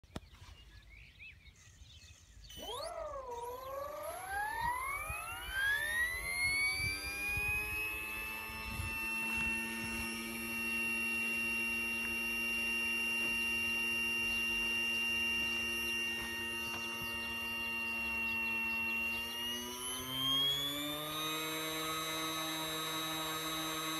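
Hirobo CH-47 Chinook electric RC helicopter's motor and tandem-rotor drive whining as it spools up. The whine starts a couple of seconds in and climbs in pitch for several seconds, holds steady, then steps up to a higher pitch near the end.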